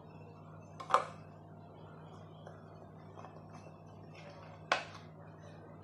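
Two sharp metallic clinks of a steel pudding tin knocking against the steamer pan and rack as it is gripped with a cloth, about a second in and again near the end, over a low steady hum.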